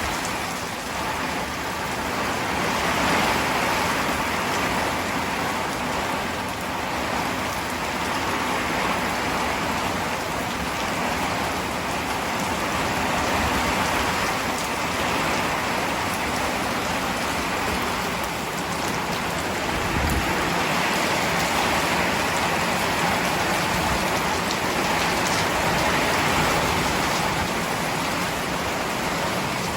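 Heavy rain pouring down steadily, a dense even hiss of drops, with a brief low bump about two-thirds of the way through.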